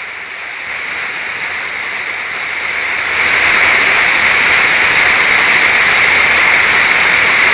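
Waterfall rushing as a steady, hissing wash of water noise, growing clearly louder about three seconds in.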